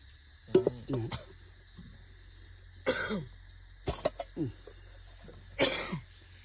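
Insects chirring in a steady high-pitched drone, while a person coughs about three seconds in and again near the end, with short throat or voice sounds about half a second in.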